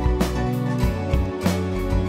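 Instrumental end-credits music with a steady beat over sustained bass notes.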